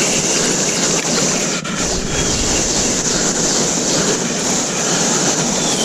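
Steady rushing of river water, an even loud wash of noise with no break.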